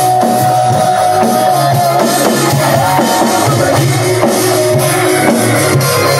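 Heavy metal song with distorted electric guitars holding a long lead note that moves in pitch about two to three seconds in, over a driving rock drum beat, with a drummer playing along on an electronic drum kit and cymbal.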